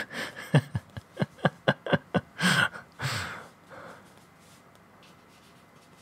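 A man laughing in a quick run of short chuckles for about two and a half seconds, ending in a breathy exhale, then quiet room tone.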